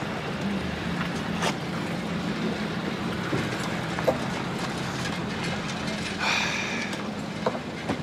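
A motor vehicle's engine running with a steady low hum, with a few scattered clicks and a short higher-pitched tone about six seconds in.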